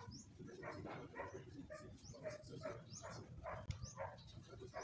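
Faint, rapid run of short animal calls, about three a second, over a low background rumble.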